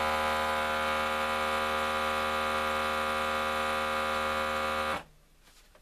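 Countertop vacuum sealer's pump running with a steady electric hum as it draws the air out of the bag, cutting off suddenly about five seconds in.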